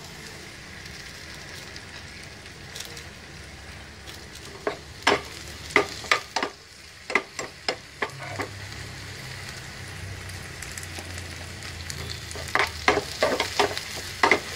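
Cashews and raisins sizzling in hot ghee in a frying pan, stirred with a steel spoon that clinks and scrapes against the pan in two runs of sharp knocks, from about four to eight seconds in and again near the end.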